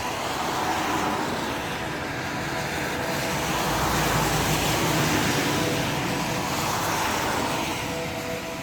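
A steady, droning outdoor roar heard from an apartment window, swelling slowly toward the middle and easing off near the end, with faint steady hum tones running under it; this is the recurring unexplained 'strange noise from the sky', which sounds much like distant city traffic.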